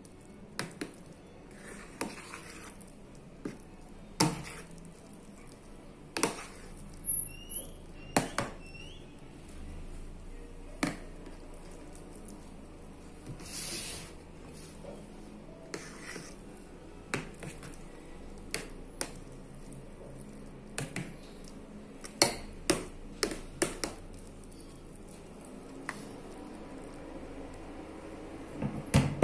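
A metal spoon spreading a thick ricotta and spinach filling in a metal baking pan: irregular sharp taps and clicks of the spoon against the pan, with soft scraping and squishing of the filling.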